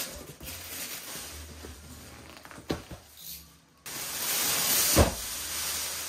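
Cardboard box being handled and a plastic-wrapped stack pulled from it: cardboard scraping and rustling, then louder crinkling of the plastic wrapping from about four seconds in, with a thump near five seconds as the stack is set down on the cardboard.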